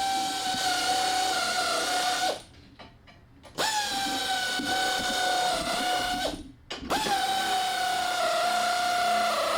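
Power drill driving 2-inch screws into wood in three runs of a few seconds each, a steady whine that drops slightly in pitch as the screw bites, with short pauses between runs.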